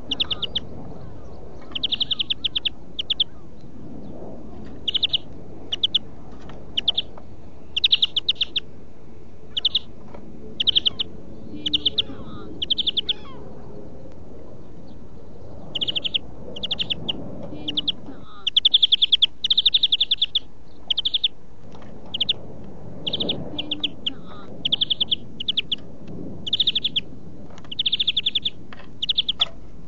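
European greenfinch singing: short bursts of rapid, high trilled notes repeated again and again with brief pauses between them.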